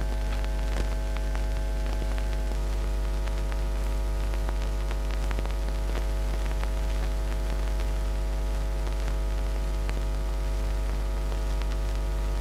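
Steady electrical mains hum with a buzzing stack of overtones, under faint crackle and scattered clicks: background noise on the soundtrack of an old 35 mm film.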